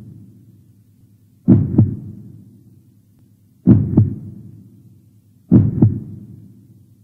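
Heartbeat sound effect: deep, loud double thumps, a lub-dub about every two seconds, three pairs in all, each fading out slowly over a low hum.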